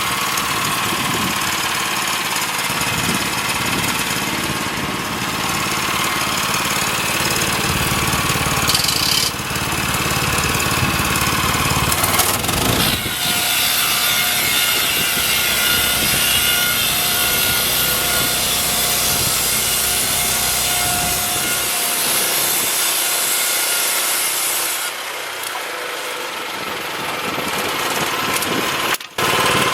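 Woodland Mills band sawmill cutting through a pine log, its gas engine running under load with the blade sawing steadily. The low engine sound thins out for a few seconds later on, and there is a very brief break just before the end.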